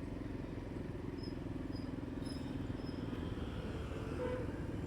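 Motorcycle engine running steadily while riding in traffic, a continuous low hum, with four short high chirps between about one and three seconds in.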